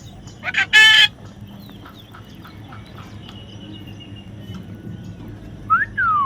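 A parrot calls loudly once about half a second in, then makes soft short chirps, and near the end gives a whistled call that rises and then falls.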